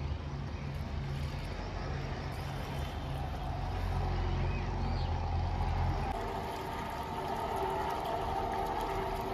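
A steady low motor hum for about the first six seconds, then water from a garden hose running into a hole in loose soil.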